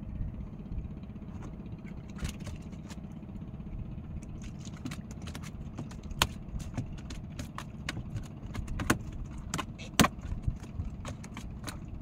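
Small clicks and clinks of fishing tackle being handled at a boat's rail, coming thick from about six seconds in and loudest near the end, over a steady low rumble.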